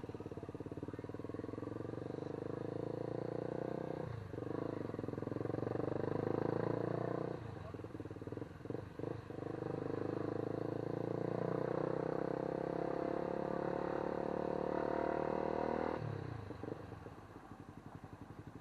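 A vehicle engine running steadily, its pitch creeping up slowly, with brief dips about four seconds in and around eight to nine seconds, and a drop to a lower pitch near the end, as when easing off or changing gear.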